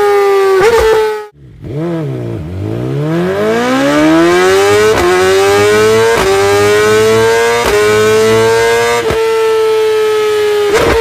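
Sports motorcycle engine and exhaust held at high revs with a steady high-pitched note. The note cuts out about a second in, then climbs from a low note back up to the high note over about three seconds, with short breaks in the sound every second or so.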